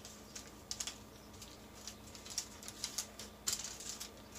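Faint, irregular crinkles and light ticks of hands pinching and pressing soft mozzarella-based dough on parchment paper, over a faint steady hum.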